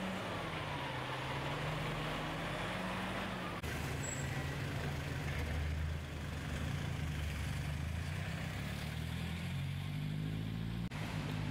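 Engines of a truck and a van running with a steady low drone. The sound changes abruptly about three and a half seconds in and again near the end.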